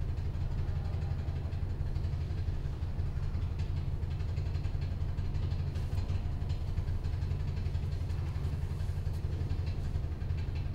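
A steady low-pitched drone.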